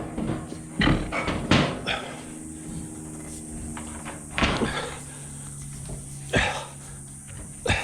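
About six separate knocks and clunks, spread unevenly over several seconds, over a low steady hum: a heavy hydraulic ram for a four-post car lift being hauled on a rope and bumped into position.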